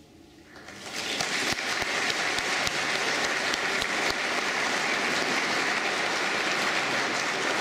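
Audience applause, rising about half a second in to steady, dense clapping within a second.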